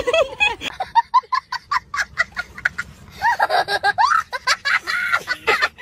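A woman laughing and giggling in quick, breathy bursts, with a short stretch of voiced laughter or chatter about three seconds in.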